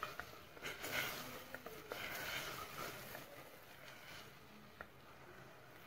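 Silicone spatula stirring hot sugar syrup with gelatin in a steel pot: faint swishing and sloshing, with a few light clicks of the spatula against the pot, easing off after about two seconds.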